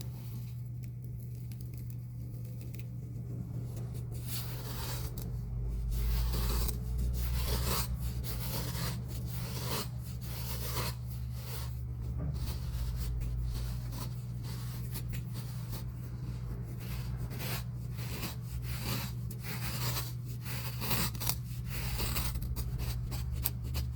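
Sand being crunched and scraped in many short, irregular strokes, starting a few seconds in, over a steady low hum.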